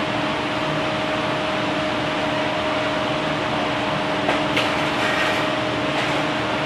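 Steady whirring hum of commercial kitchen fans, a convection oven's fan among them, with a low held drone. A couple of light clicks come a little past halfway.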